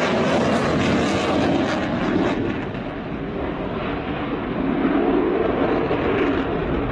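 Panavia Tornado A-200 jet's twin RB199 turbofans roaring through a display pass. The highest hiss fades after about two seconds, and the roar eases a little before building again.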